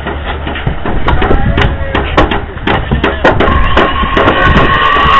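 Hammers driving nails into a wooden stud-wall frame, sharp irregular blows about two a second. A held musical note comes in about three and a half seconds in.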